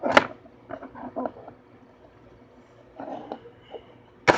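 Handling noise of a small plastic toy figure and its clear plastic packaging: a sharp knock or rustle at the start, a few light taps and rustles after, and another sharp noise just before the end.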